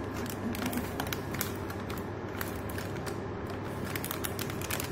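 Silver anti-static foil bag being handled and opened by hand: an irregular run of crinkles and crackles.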